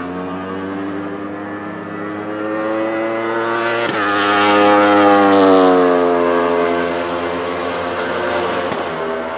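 Wolf GB08 Thunder race car's 1,000cc Aprilia RSV4 V4 superbike engine at full throttle as it passes. It climbs in pitch, upshifts about four seconds in and is loudest just after, then falls in pitch and fades as it moves away, with another shift near the end.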